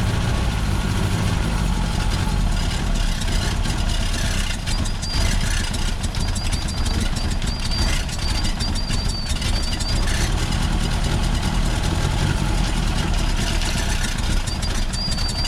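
Car engine running steadily with its throttle held open by a brick on the gas pedal, with water in the engine. A thin high whistle joins in about five seconds in, and again near the end.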